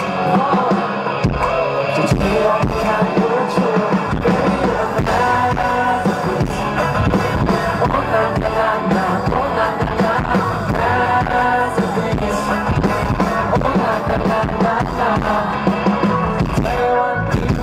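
Live pop-rock band music: a male vocalist singing into a handheld microphone over drums and the rest of the band.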